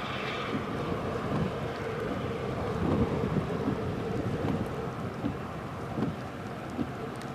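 Gusty wind buffeting the microphone: a steady rushing noise with irregular low rumbling gusts.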